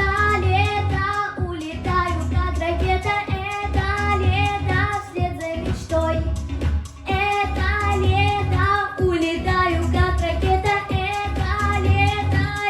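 A young female singer singing a pop song over a backing track with a steady bass beat.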